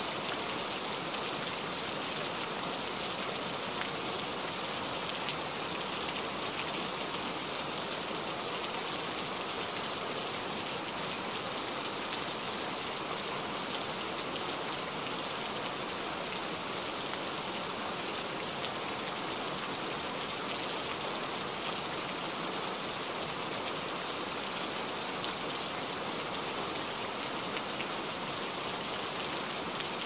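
Steady rain falling, an even hiss with the patter of individual drops.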